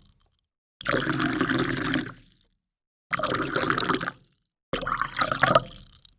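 Water pouring, heard as three separate short pours of about a second each, each starting suddenly and trailing off, with silence between them.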